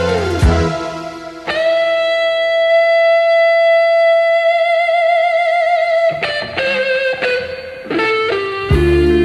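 Background music: a guitar holds one long note with vibrato for several seconds, then plays a few short notes, and the bass comes back in near the end.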